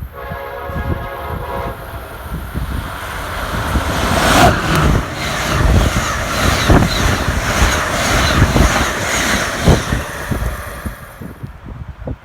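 Amtrak Northeast Regional passenger train sounding its horn for about two seconds, then passing at speed: a loud rush of wheels on rail and air that builds, carries a few sharp knocks, and fades near the end.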